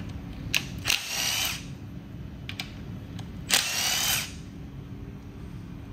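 Compact cordless power tool spinning out the timing-cover bolts on a V8 engine block. Two short runs, each under a second, with the motor whine rising as it spins up, and a few light clicks of the socket and bolts between them.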